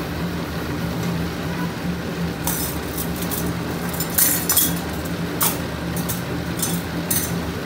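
Two steel ladles clinking against each other in the hand: a string of light metallic clinks, about ten over the second half. Underneath runs the steady low hum of the running press machine.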